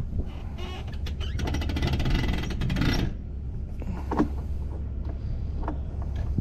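Wind buffeting the microphone in a steady low rumble, with a rapid clicking rattle for about a second and a half and a few scattered knocks.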